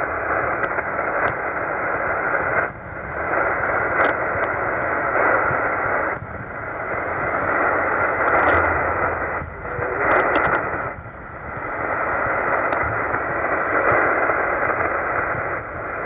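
Tecsun PL-990x shortwave receiver's speaker giving a steady rushing hiss of band noise on the 20-metre amateur band in upper-sideband mode. The hiss dips briefly a few times.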